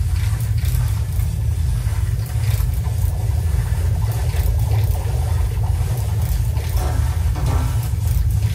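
Electroacoustic collage: a steady low rumbling drone with faint scraping clicks over it, layered from recordings of an everyday object, the endless turning of a historical laundry mangle with plastic bottles squeezed between its rollers.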